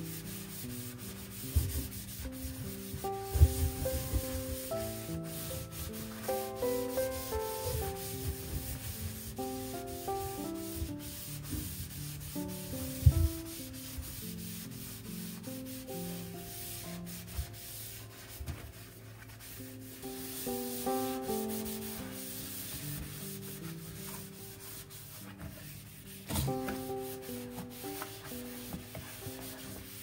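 Something being scrubbed hard against a surface in repeated rubbing strokes, with a few sharp knocks, over soft background music.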